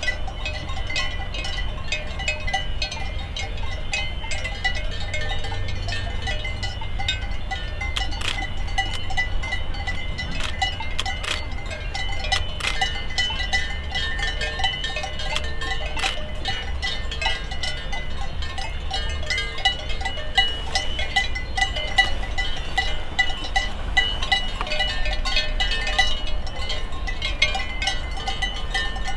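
Cowbells on grazing cows ringing and clanking continuously, many bells at once, with sharper clanks now and then over a steady low rumble.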